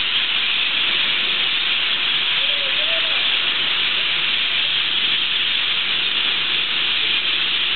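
A huge flock of parrots calling all at once in roost trees at dusk, blending into one loud, unbroken shrill din.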